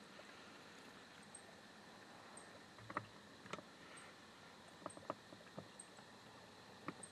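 Near silence: a faint steady hiss, with a few soft clicks and taps from about three seconds in and faint high chirps about once a second.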